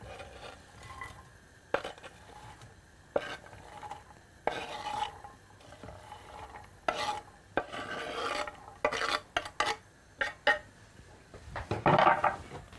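Knife or spatula scraping diced onion and carrot off a wooden cutting board into a frying pan, in a series of irregular strokes, the loudest near the end.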